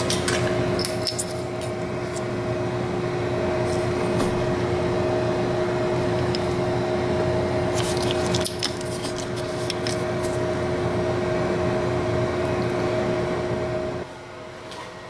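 CNC-converted Grizzly G0602 bench lathe running with a steady two-note hum and scattered clicks, then stopping about 14 seconds in.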